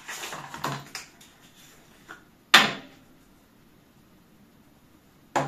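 Skincare containers being handled at a sink: light rustling and handling at first, then two sharp plastic clicks, a loud one about halfway through and another near the end, as caps and jars are opened and set down.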